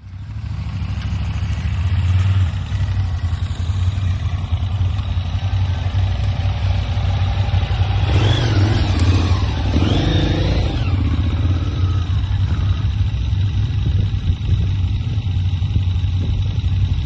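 Motorcycle engine running steadily with a strong low rumble, starting abruptly, with some brief wavering higher sounds in the middle.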